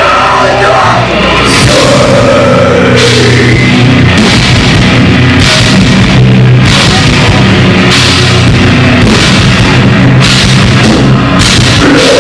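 Live heavy metal band playing loudly: distorted guitars and bass holding low chords over a pounding drum kit with crashing cymbals.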